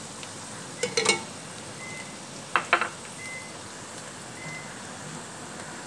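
A metal serving spoon clinking and scraping against a metal cooking pot as palak chicken is scooped out: a couple of sharp clinks about a second in and another pair near the three-second mark, over a steady low hiss.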